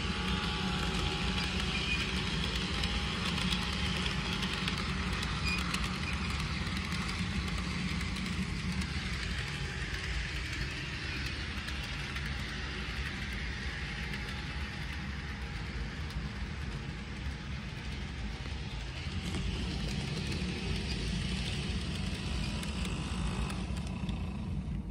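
Toy electric train running on a plastic track: a steady whir from the locomotive's motor with the rumble of the wheels on the rails, quieter for a while in the middle and stronger again later.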